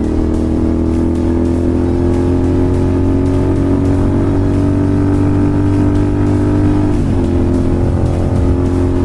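Royal Enfield Continental GT 650's parallel-twin engine with an aftermarket slip-on exhaust, running at a steady cruise under throttle; about seven seconds in the note briefly breaks and settles slightly lower, like a gear change.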